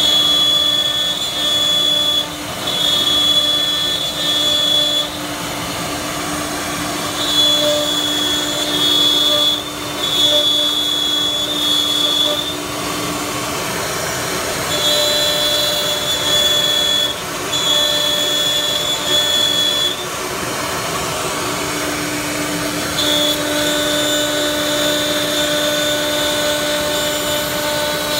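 A four-spindle CNC router's spindles run while the bits rout a wood panel. A steady low hum runs throughout, and over it a high whine comes and goes in stretches of one to five seconds as the cutters work.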